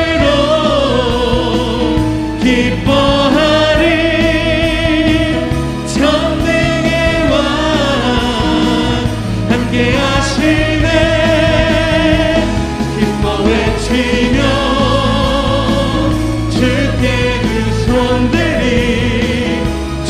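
Congregation and worship leader singing a Korean praise song together, with keyboard accompaniment. The voices are held and wavering, over a steady low backing.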